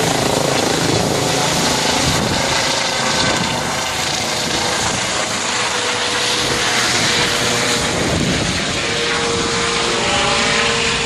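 Helicopter running close by: a loud, steady rush of rotor and engine noise, with a steady tone joining in over the last few seconds.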